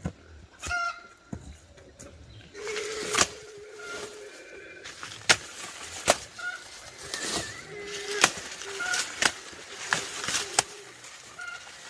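Chickens clucking and peeping: short high peeps repeat, with a longer lower call about three seconds in. Sharp snaps or knocks recur over them.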